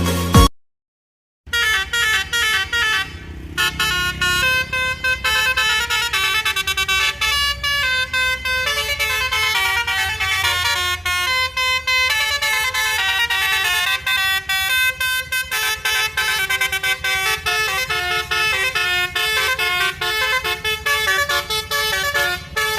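Basuri telolet horn on a bus playing a fast melody of short, stepped horn notes. It starts after a brief silence about a second and a half in.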